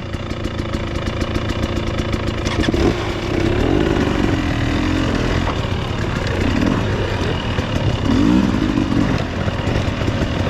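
Off-road motorcycle engine being ridden over rough, rocky ground, the revs rising and falling again and again with the throttle, with a sharp knock about three seconds in.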